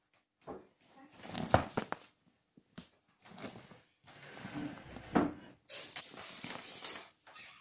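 Fabric rustling and scratching from a soft-sided suitcase as a hand pats the lid and a cat scrabbles inside it, in irregular bursts. A brighter, hissier rubbing comes about six seconds in and lasts about a second.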